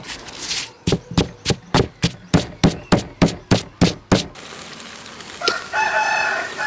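Wooden pestle pounding chilies, garlic and sugar in a stone mortar, about four strikes a second for a few seconds, then stopping. Near the end a rooster crows.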